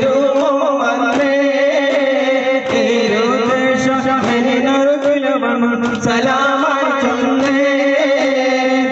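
Duffmuttu: voices singing a chant-like devotional song with a wavering held melody, over strokes on daf frame drums.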